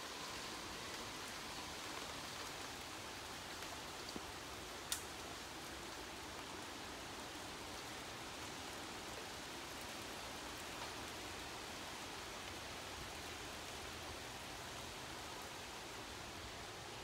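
Steady rain falling, an even hiss, with a single sharp tick about five seconds in.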